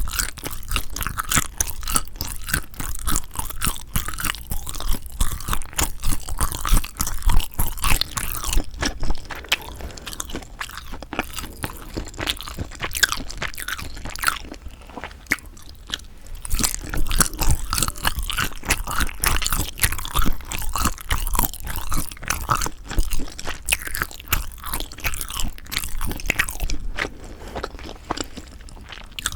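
Close-miked chewing and biting of sundae (Korean blood sausage), a dense run of wet, crackling mouth clicks that eases off for a moment in the middle and again near the end.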